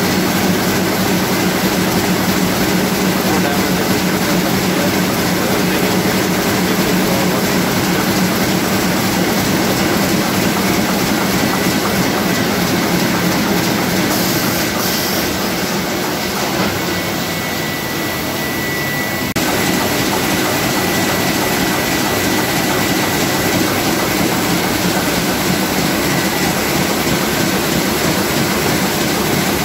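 Komori Lithrone L432 four-colour offset printing press running: a loud, steady mechanical clatter with a low hum and a thin high whine. About two-thirds through it briefly dips a little, then comes back suddenly.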